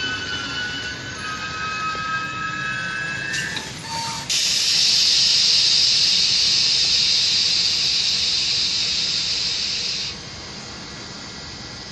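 Regional passenger train's brakes squealing in several high, slowly falling tones as it comes to a stop, then about four seconds in a loud burst of compressed air hissing from the brake system for about six seconds, cutting off suddenly.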